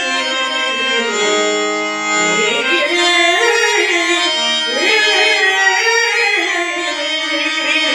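Male voice singing long, gliding melismatic phrases of a Telugu padyam in raga Udaya Ravichandrika, accompanied by a harmonium holding steady notes.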